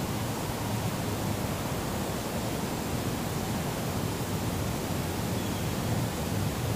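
Steady hiss with a low rumble underneath and no distinct events.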